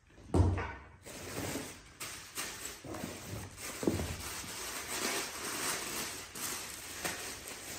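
Plastic and paper packaging crinkling and rustling as a wrapped parcel is lifted out of a cardboard box and unwrapped, with many small crackles. A single thump about half a second in.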